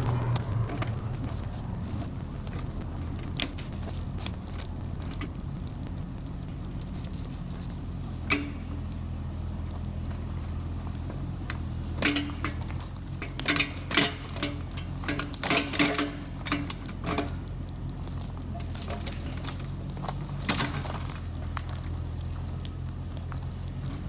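Kubota KX71-3 mini excavator's diesel engine running steadily, with sharp metallic clanks and knocks from the machine working: one about a third of the way in, a quick run of them past the middle, and one more near the end.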